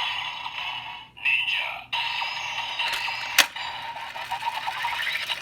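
Electronic sound effects and music from a DX Magnum Shooter toy gun's small built-in speaker, set off by the Ninja Raise Buckle loaded into it, with a sharp click about three and a half seconds in.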